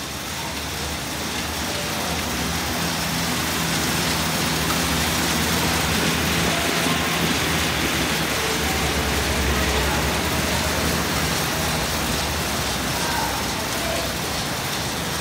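Assault AirBike fan bikes whooshing as they are ridden hard: a steady rush of air from the spinning fans with a low hum beneath. The noise builds over the first few seconds as the pace picks up, then holds.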